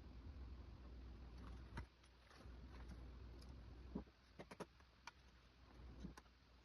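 Near silence with a low hum, broken by a handful of faint clicks and knocks as parts are handled during the teardown of an old LED TV. The loudest knock comes about two-thirds of the way in, followed by a quick cluster of clicks.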